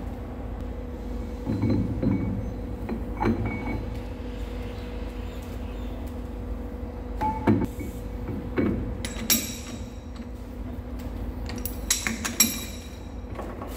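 Steady machine hum, with metal clinking and knocking a few times throughout as parts are handled.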